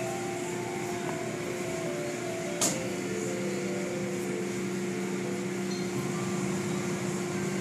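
Automatic car wash running, heard from inside the car: a steady motor hum with an even hiss of water and foam on the car, and one sharp knock about two and a half seconds in.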